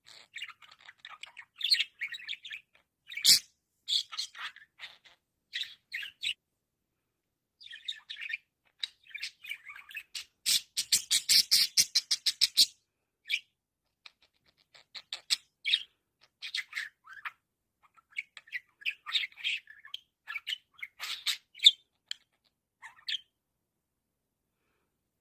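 Budgerigar chattering and warbling: a string of short chirps and squawky notes with brief pauses. About halfway through comes a fast run of clicks, about ten a second.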